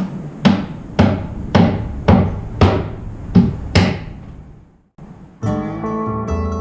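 Seven sharp hammering blows on wood, about two a second, each ringing briefly. Background music of plucked strings starts near the end.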